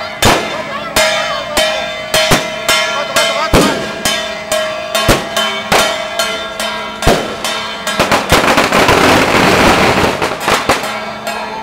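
Firecrackers going off in sharp, irregular bangs, a few a second. About eight seconds in they run together into a dense, rapid crackle that lasts nearly three seconds.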